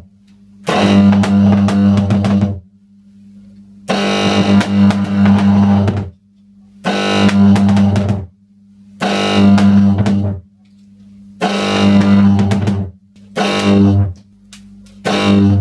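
High-voltage arcs drawn from a salted electrode by a power supply of eight microwave oven transformers, buzzing and crackling in seven bursts of one to two seconds each. A faint electrical hum carries on in the gaps between them.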